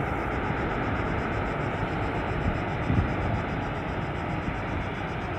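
Airbus A320-233 jet engines (IAE V2500) heard from behind as a steady, even rush while the airliner decelerates on its landing roll, with a brief low thump of wind on the microphone about three seconds in.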